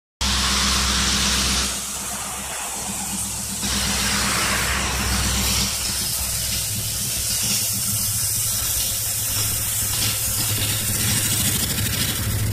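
A car passes close by at the start, its noise dropping away after about a second and a half. After that comes a steady hiss of traffic noise with a low hum underneath.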